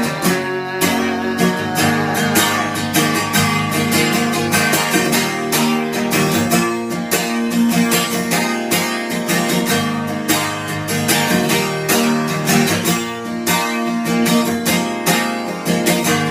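Acoustic guitar strummed in a steady rhythm, an instrumental passage of a song with no vocals.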